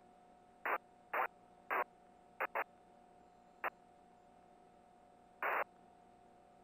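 Aircraft radio squelch: seven short bursts of static in about five seconds, the last a little longer, over a faint steady hum and tone.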